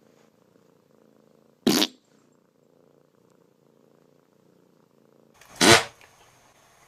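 A cat purring faintly and steadily, broken twice by a sudden loud burst of noise: a short one about two seconds in and a longer, deeper one near the end.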